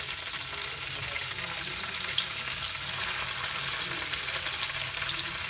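Paneer pieces shallow-frying in a little oil in a pan: a steady sizzle with small crackles.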